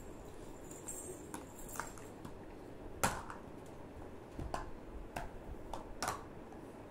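Scattered light clicks and taps of small plastic baby toys being handled, with one sharper knock about three seconds in.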